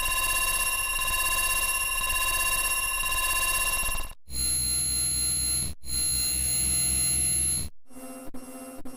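Carl Wheezer's "croissant" voice clip, stacked and sped up so far that it has become a steady electronic ringing tone with overtones, like a phone bell. It cuts out briefly about four seconds in and again near six seconds, coming back at a different pitch each time. About eight seconds in it drops to a quieter, lower tone broken by short gaps.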